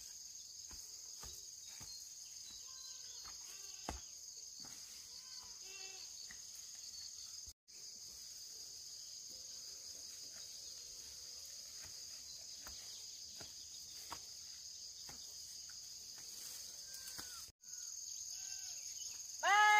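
Steady high-pitched drone of insects, with faint scattered chirps and light clicks. Right at the end a loud animal bleat starts, falling in pitch.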